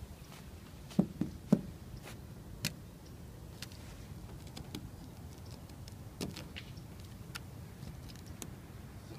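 A few sharp knocks and clicks, the loudest two about a second and a second and a half in, as a hand breaks and works at a sheet of ice frozen onto a rusty steel truck cab floor pan, over a low steady rumble.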